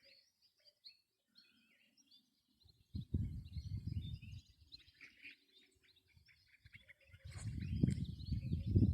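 Several small birds chirping and trilling in a mountain dawn chorus. A low rumbling noise comes in about three seconds in, fades, then returns near the end, growing loud enough to rise above the birdsong.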